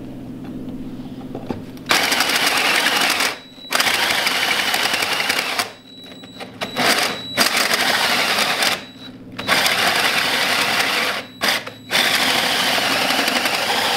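Small drill driving a 2¼-inch hole saw through a steel mounting plate, cutting dry without cutting oil. The drill runs lightly for about two seconds. Then the saw bites in with loud grinding in about five bursts, with short pauses between them and a thin high whine running through them.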